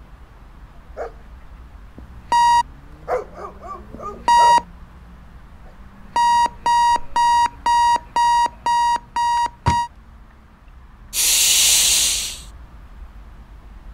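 Electronic alarm clock beeping: two single beeps, then a run of about eight beeps at about two a second that breaks off. It is answered by a long, loud "shhhhh" shush.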